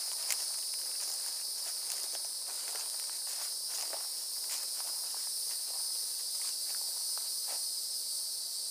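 A steady, high-pitched chorus of insects, unbroken throughout, with faint scattered footsteps on grass and leaf litter.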